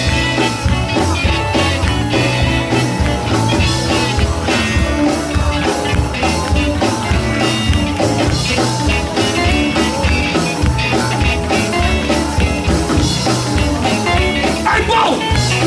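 Live gospel band playing an instrumental stretch of an up-tempo song, with electric guitar, bass and drum kit on a steady beat.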